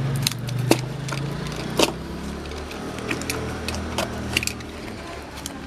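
A low mechanical hum that drops in pitch about one and a half seconds in, with scattered sharp clicks and clinks of small hard objects.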